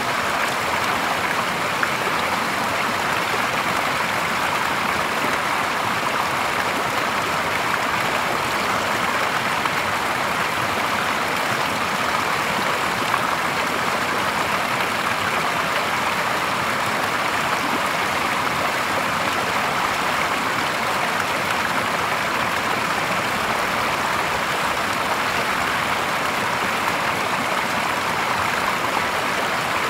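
Clear spring-fed stream water spilling over a small ledge and splashing into a shallow pool: a steady, unbroken rush of falling and running water.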